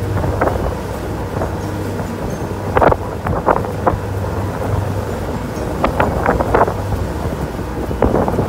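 Boat motor droning steadily under wind buffeting the microphone, with a few short sharp bursts about three seconds in and again around six seconds in.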